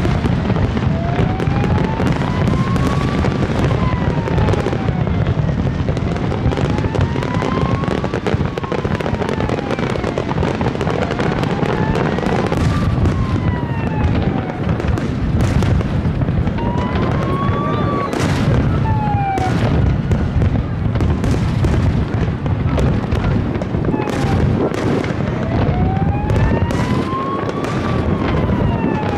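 Aerial fireworks display bursting continuously, a dense run of booms and crackles with no pause. Over it a high tone slides up and down in pitch again and again.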